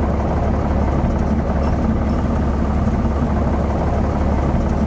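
Cessna 182T's Lycoming six-cylinder piston engine running steadily, a low drone heard inside the cockpit.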